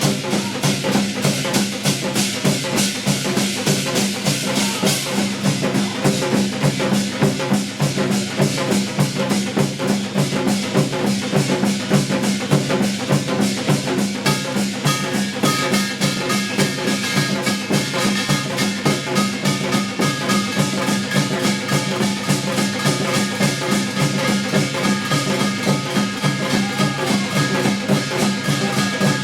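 Live Korean ritual music from a modern staging of Hwanghae-do gut: fast, driving drumming in an even, dense rhythm. About halfway through, several held higher tones join the percussion.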